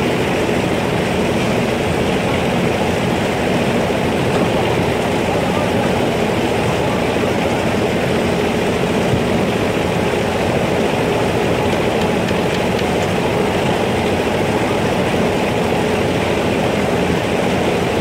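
Hyundai 220LC crawler excavator's diesel engine running steadily under load while its bucket digs out a drain trench.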